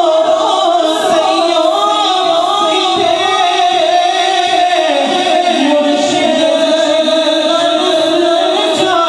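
A man singing a devotional naat into a microphone, drawing out long, ornamented notes.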